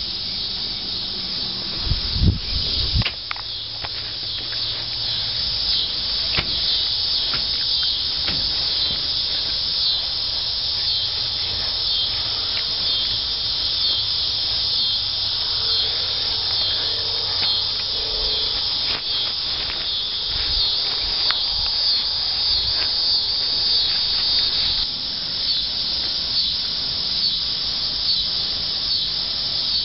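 Steady evening chorus of crickets chirping, a dense high pulsing that runs on without a break. A few low thumps sound about two to three seconds in.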